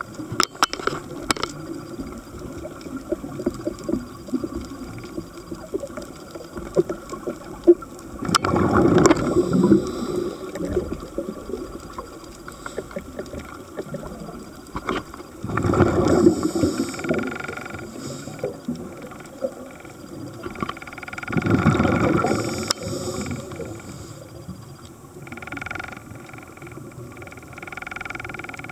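Scuba regulator breathing heard underwater: three long bubbling exhalations about six seconds apart, with quieter hissing breaths between and a background of scattered crackling clicks.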